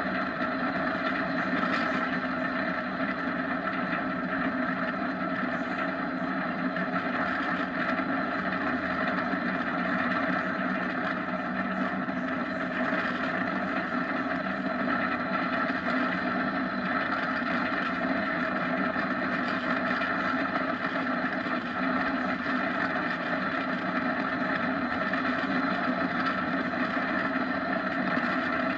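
Steady rush of road and wind noise from an unpowered downhill gravity kart rolling at speed on asphalt, holding an even level throughout.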